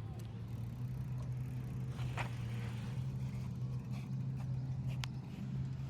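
Steady low hum of a running vehicle, with a light click about two seconds in and another about five seconds in.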